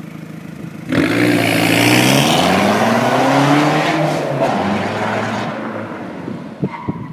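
Fiat Punto JTD turbodiesel exhaust note as the engine is blipped from idle. It jumps up about a second in, rises in pitch for a few seconds, then falls back to idle.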